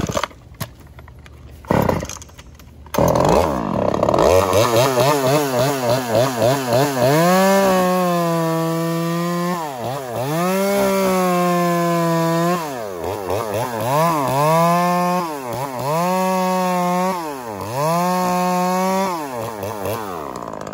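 Chainsaw cutting into a rotted stump at ground level. After two sharp knocks, it revs up and warbles up and down, then runs at high speed. Its pitch sags each time the chain bites into the wood and soil, about five times, and climbs back as the chain frees.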